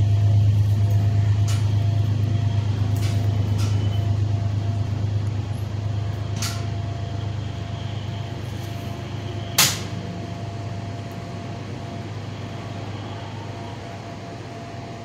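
Diesel-hauled passenger train, MTA locomotive 219, running away beneath the camera: a low steady drone that slowly fades. A few sharp clicks come through it, the loudest nearly ten seconds in.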